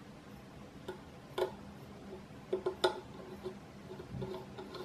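Small screwdriver turning in the tiny screw that holds an M.2 SSD to a PCIe adapter card: a few faint, scattered clicks and ticks.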